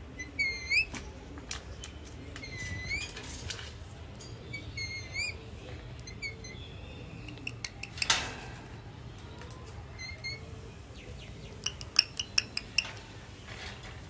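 Pet parrot giving a series of short, rising chirping whistles, with a burst of sharp clicks near the end.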